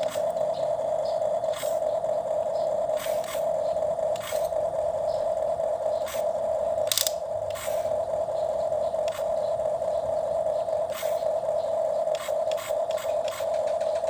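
Small electric motor of a toy excavator whirring at a steady pitch, with irregular clicks and scrapes of plastic parts and digging.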